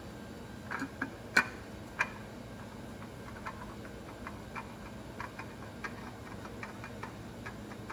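Light irregular clicks and ticks, two or three a second, as a new spin-on oil filter is turned onto its mount by gloved hands. A few louder knocks come about one to two seconds in.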